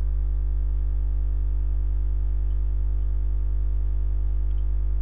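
Steady electrical mains hum, a low buzz at about 50 Hz with a series of higher overtones, picked up by the recording, with a few faint clicks.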